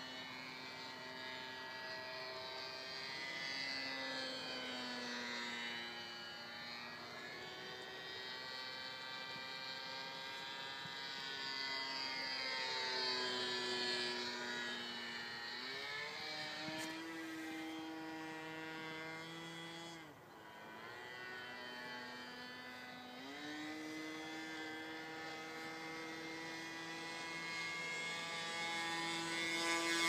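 Engine of a radio-controlled model airplane flying overhead, a buzzing drone that slowly slides down and up in pitch as the plane passes. About halfway through the pitch steps up, and after a short dip in level it steps up again.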